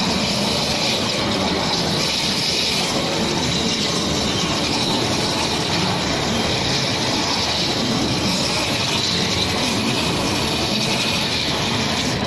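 CNC waterjet cutting machine's high-pressure jet cutting a workpiece in its water-filled catch tank, making a steady, even hiss.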